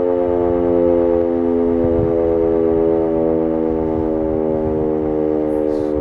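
Sentry 14V outdoor warning siren sounding a steady, multi-note tone during its monthly test, its pitch drifting very slightly lower.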